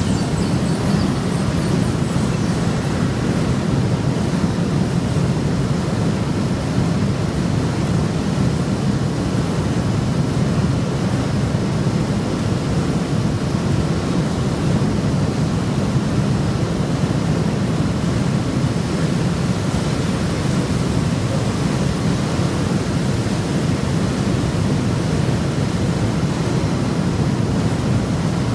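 Steady, unchanging machinery noise with a strong low hum, with no distinct knocks or changes: conveyors and a forklift running in a produce packing shed.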